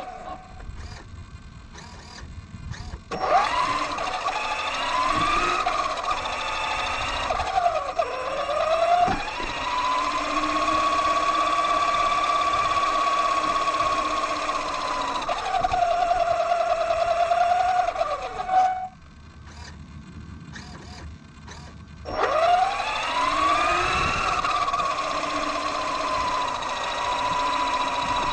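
RC truck's brushless electric motor and geared drivetrain whining under throttle. Quiet at first, the whine rises sharply about three seconds in, holds a steady pitch while cruising with a brief dip and recovery, drops out for a few seconds in the last third, then rises again.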